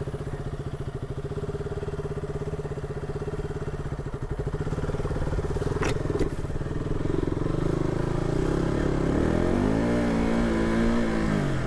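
Motorcycle engine running at a steady low speed, then revved up and let back down again over the last few seconds, with a brief click about six seconds in.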